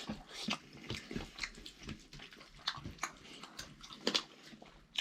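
A person chewing a mouthful of rice and dal, with irregular wet mouth smacks and clicks close to the microphone.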